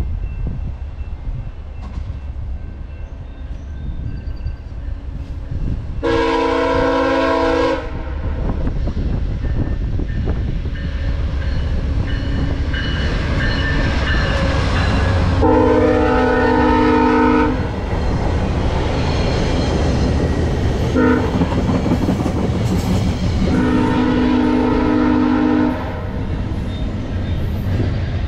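VIA Rail 909, a GE P42DC diesel passenger locomotive, approaching and passing at speed, sounding its multi-chime horn in the long, long, short, long crossing pattern. Under the horn the diesel engine rumbles and the wheels clatter over the rails, loudest in the middle as the train goes by.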